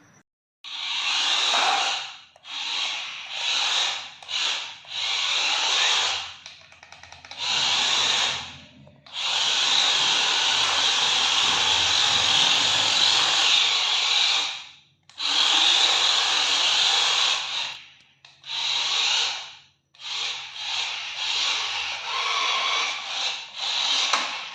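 A toy RC car's small electric motor and gears whirring as it is driven in bursts of about a dozen short runs, with one long run of about five seconds near the middle.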